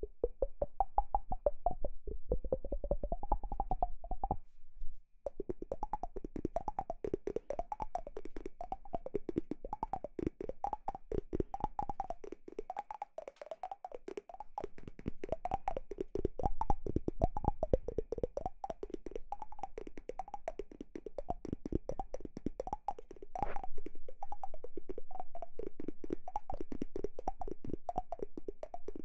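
Close-miked ASMR trigger sounds: rapid, dense clicking with a hollow resonance that rises and falls about once a second, with a short break about five seconds in and a quieter stretch near the middle.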